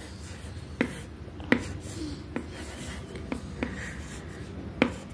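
Plastic stylus writing on an LCD writing tablet, with half a dozen sharp, irregularly spaced taps as the tip meets the screen.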